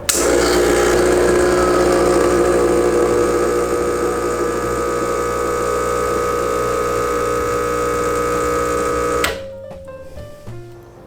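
Espresso machine pump running steadily with a buzzing hum as a double shot is pulled, starting suddenly and cutting off abruptly about nine seconds in.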